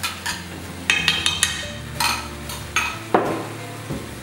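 A utensil stirring in a stainless-steel frying pan of cooking onion, tomato and chipotle chiles, with irregular clinks and knocks of metal on the pan, the loudest a little after three seconds in.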